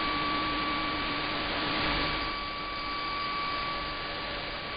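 Shortwave AM radio reception with no programme on the carrier: steady hiss and static with a thin steady whistle, and a fainter low tone that fades out about halfway through.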